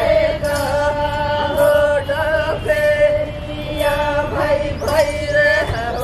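Lambada (Banjara) folk song for dancing: voices singing a chant-like melody in long held notes that bend at the phrase ends, over a regular beat about once a second.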